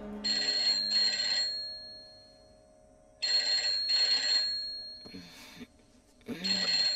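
Rotary desk telephone ringing in a double-ring pattern: two full ring-ring bursts about three seconds apart, with a third starting near the end.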